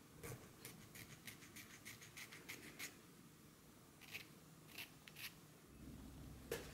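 Small metal file scraping in short strokes across the tip of a plastic stylus, about three strokes a second, then a few slower strokes about four seconds in. It is filing down the stylus's locking part because the stylus clicks in too stiffly.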